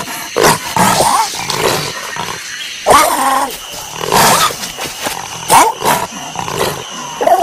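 Animated tiger cub growling and roaring in a string of short, separate calls.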